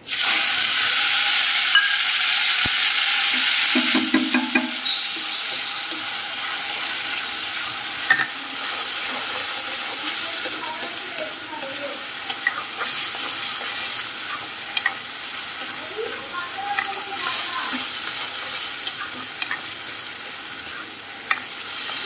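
A wet ginger, onion, tomato and garlic paste tipped into hot oil with cumin in a kadhai, sizzling loudly the instant it lands and then frying more gently as it cooks down. A metal ladle stirs it, clicking and scraping against the pan.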